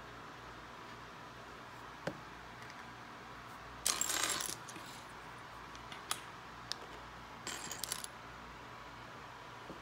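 Loose plastic Lego pieces clicking and clattering against each other and the wooden table as a hand rummages through the pile. The loudest clatter comes about four seconds in, another cluster comes near eight seconds, and single clicks fall in between.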